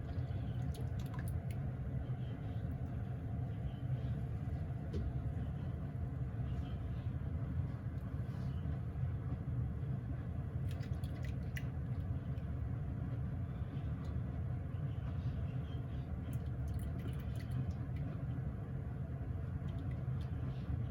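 A pot of tengusa seaweed boiling over a burner: a steady low rumble with a few faint scattered ticks.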